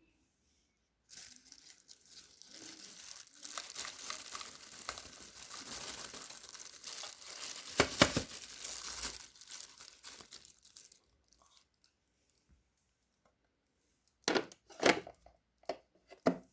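Crinkling, rustling plastic handling as the Xiaomi robot vacuum's removed dustbin is emptied and cleaned, lasting about ten seconds with its loudest moment past the middle. A few sharp knocks near the end.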